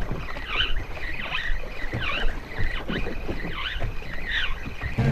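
Water slapping and sloshing against the hull of a drifting boat, with a short squeak repeating about every three quarters of a second.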